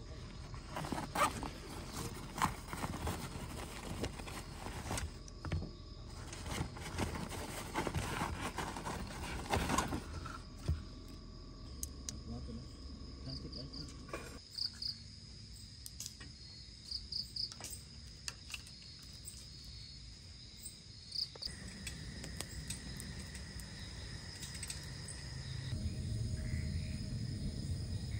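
Insects chirping steadily, with short paired chirps about halfway through. Irregular knocks and clatter in the first ten seconds.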